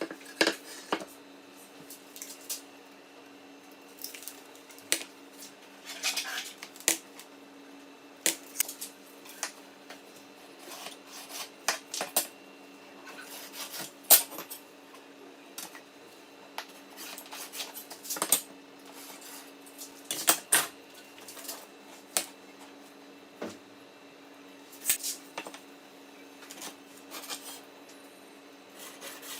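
Irregular metallic clinks, clicks and short scrapes of small metal parts and tools being handled and set down, over a faint steady hum.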